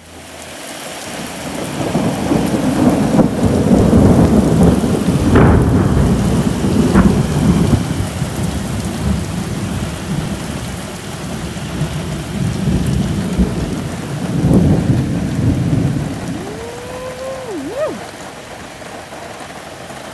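Heavy rain falls steadily while a long rolling rumble of thunder builds over the first couple of seconds. The thunder is loudest a few seconds in, swells once more later, then dies away, leaving the rain.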